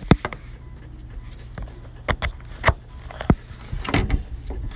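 Scattered sharp clicks and knocks of a portable lithium jump starter being handled, its clamp cable's plug pushed into the unit's socket.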